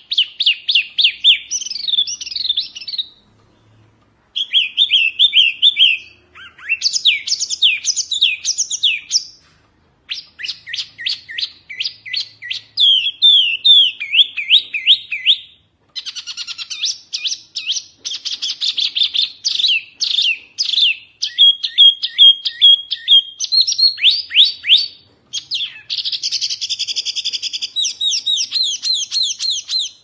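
A caged wambi, the small babbler that Indonesian bird keepers call 'mini hwamei', singing loudly and without let-up. Its song is long, varied phrases of rapid, sharp falling whistles and trills, broken by short pauses about 3, 10, 16 and 25 seconds in.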